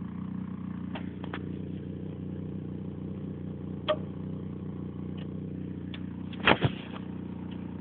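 Steady electrical buzz and hum in the audio output of a MacBook Pro's external sound card, with a few sharp clicks, loudest a double click about six and a half seconds in: interference caused by a connected HP LaserJet 1022 printer.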